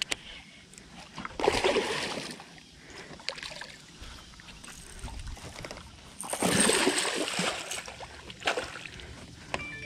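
Water splashing beside an aluminum jon boat as a hooked fish thrashes at the surface, in bursts, the loudest about a second and a half in and again about six seconds in.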